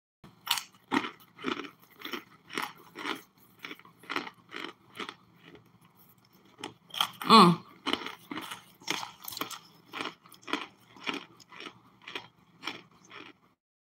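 Solid chunks of cornstarch crunching as they are bitten and chewed, about two crunches a second. About halfway through comes one louder, pitched sound.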